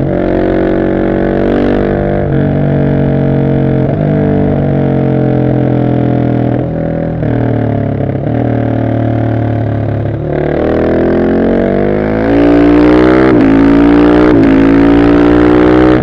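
Husqvarna 701 SM's single-cylinder engine through an Arrow exhaust with the dB killer fitted, accelerating through the gears: the pitch climbs and drops back at each shift. In the last few seconds it pulls harder and louder, with two quick upshifts.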